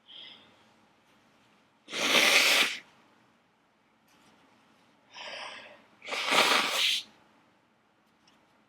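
Two loud human sneezes about four seconds apart, each preceded by a quieter build-up breath, part of a sneezing fit brought on by attic dust.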